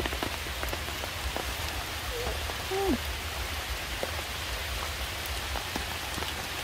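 Steady rain falling on stone and leaves, with scattered drop ticks. Two short faint calls sound about two to three seconds in, the second one falling in pitch.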